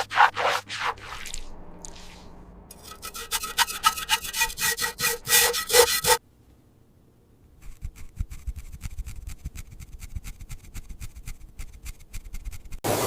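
Hand scraping or filing in repeated strokes, heard in several short cuts: a few quick strokes, then a steadier run of strokes with a ringing edge that stops abruptly, and after a brief hush a rapid, light scratching.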